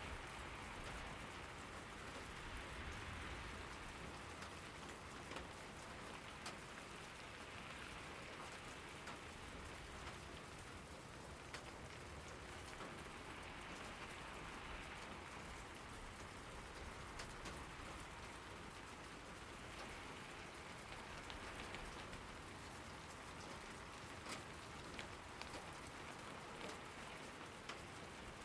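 Steady rain falling on surfaces, an even hiss with many scattered individual drop ticks.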